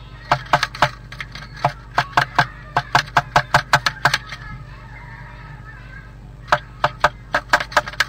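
A blue tit pecking hard at the inside wall of its nest box: a run of sharp taps, about four a second, for the first four seconds, then a short pause and another run near the end.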